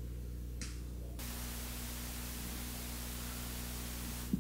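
Steady hiss and electrical hum of the recording's background noise, with no distinct sound; the hiss drops away for about the first second, then returns.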